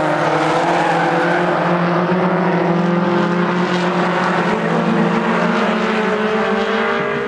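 Several modified stock cars racing, their engines held at high revs, with a few engine notes overlapping at slightly different pitches that waver as the cars slide through the turns.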